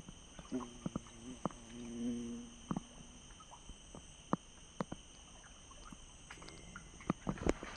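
Insects droning steadily, with scattered sharp splashes and knocks as a person wades in a shallow stream working a fishing net in the water, the splashes thickest near the end. A low hum sounds from about half a second in, for nearly three seconds.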